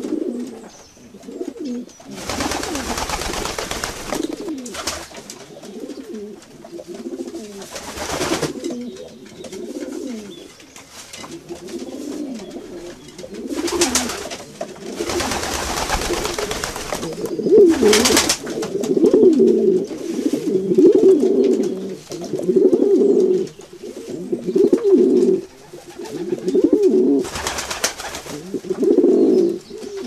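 A flock of feral pigeons cooing continuously, a low warbling chorus. Several loud rushing bursts of wing flapping come through it as birds take off and land.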